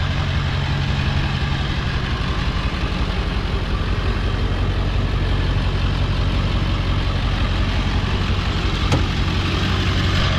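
1999 Ford F-250 Super Duty's 7.3-litre Power Stroke turbo-diesel V8 idling steadily.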